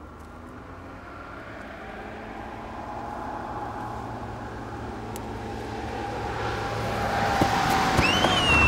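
A car approaching at night, its engine and tyre noise growing steadily louder, then a high screech of tyres skidding near the end.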